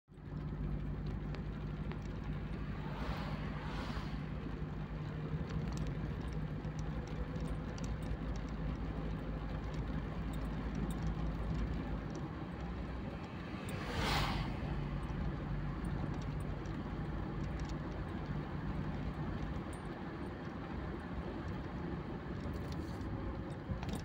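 Steady engine and road-tyre noise heard from inside a moving car, with a low steady hum. Passing vehicles swish by twice, about three seconds in and about fourteen seconds in; the second is louder.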